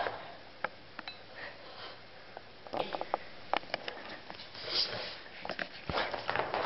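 Boston terrier snorting and sniffing as it romps on a rug, with scattered sharp clicks and a thump from its scrambling feet.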